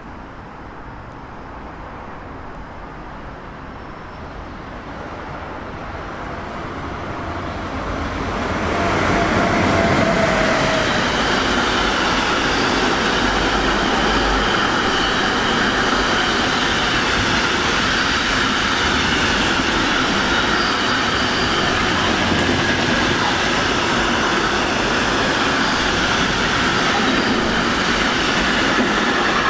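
A train approaching and then passing close by. Its noise swells for about eight seconds, then holds as a steady, loud rush and rumble of wheels on the rails while the train goes by.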